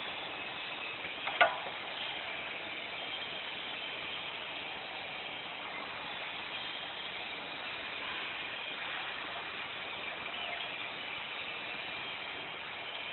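Automatic PVC car mat making machinery running with a steady mechanical noise, broken once, about a second and a half in, by a sharp clack.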